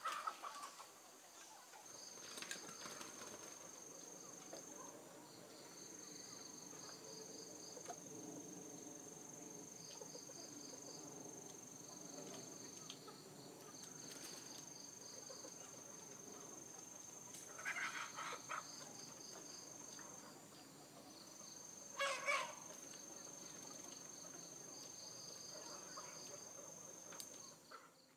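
Night farmyard ambience: insects trill in a steady high whine that stops and starts, with short pulsed chirps beneath it, while chickens cluck softly. Two louder short sounds stand out about 18 and 22 seconds in.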